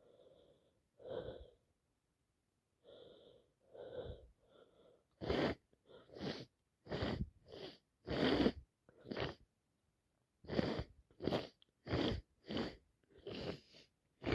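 A woman with a heavy cold and a congested nose sniffling and sneezing. Soft breathy sniffs come first, then from about five seconds in a rapid run of a dozen or so short, sharp sniffs and sneezes.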